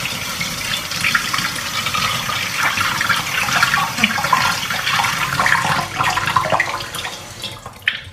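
Water running from a tap into a sink with uneven splashing. It thins out and stops just before the end.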